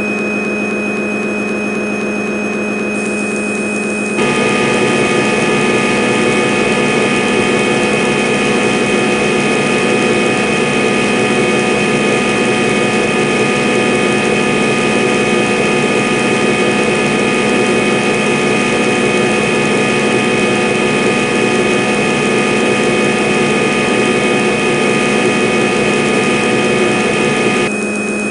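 CNC lathe running a boring program in auto mode, a steady machine hum with a whine. It gets louder about four seconds in, as the spindle and cut get going, and drops back shortly before the end.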